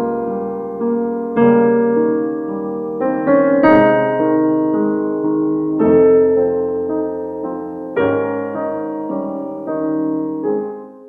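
Background piano music: slow struck notes and chords, fading out near the end.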